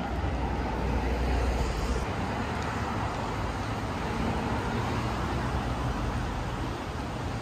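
City street traffic: cars passing on the road, a steady wash of tyre and engine noise with a low rumble.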